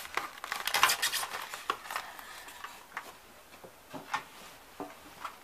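Handling sounds as a plastic model locomotive is worked out of its polystyrene packaging tray: scraping, rubbing and small clicks, busiest in the first two seconds, then a few scattered knocks.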